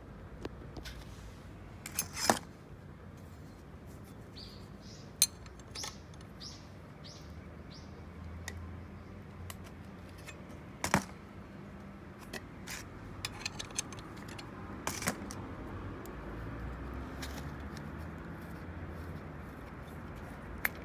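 Scattered sharp metallic clinks and taps of hand tools and small metal parts being handled, a few louder than the rest. A run of five or six short high chirps comes a few seconds in.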